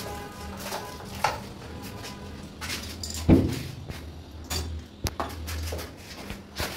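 Clicks and metallic clinks of a round knob door lock being handled and fitted, with a louder knock about three seconds in.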